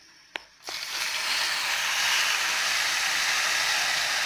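Tamarind extract poured into hot sesame oil and tempering in a frying pan: a loud sizzling hiss that starts suddenly just under a second in and keeps going steadily.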